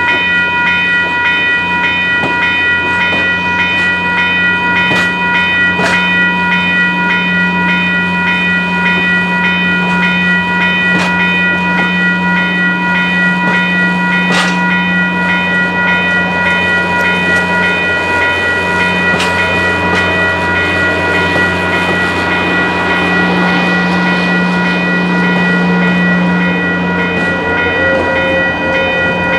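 A train running on the rails, with a steady stack of ringing tones and a low hum throughout and a few sharp clicks.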